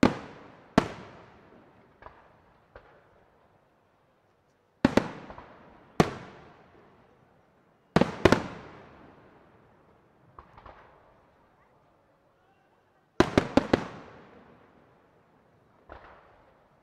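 Aerial firework shells bursting in a professional display: single sharp bangs, each echoing away, spaced a second or a few seconds apart, with a quick volley of four or five bangs about thirteen seconds in.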